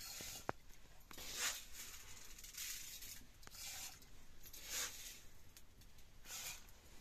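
Hands rubbing damp flour between the palms over a metal bowl: a dry, scratchy rub about once a second, six strokes in all. A few light sharp clicks come in between.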